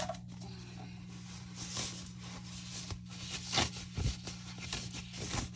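Handling noise while a boxed shower head is unpacked: packaging rustling and a few short knocks, strongest past the middle, over a steady low hum.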